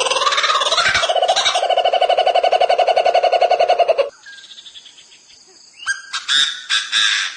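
Bird calls: a loud, rapidly pulsing rattling call that cuts off abruptly about four seconds in, then a few short, loud calls near the end.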